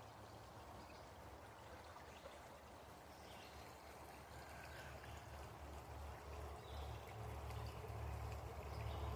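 Faint outdoor forest ambience: a steady hiss like running water, with a low rumble that grows louder over the second half and a few faint, short high chirps.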